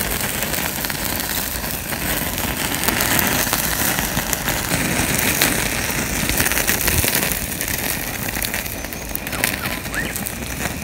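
Oily eel chunks grilling over a small camping gas stove's flame: a steady sizzle with many sharp crackles and pops.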